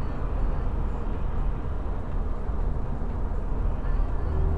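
Steady road and engine drone of a car at motorway speed, heard from inside the cabin, a low even rumble. A steady hum comes in near the end.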